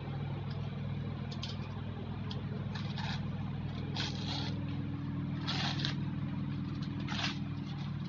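Paper sticker label being slit and torn off a rolled foam yoga mat, in about five short rasping rips, over a steady low engine-like hum.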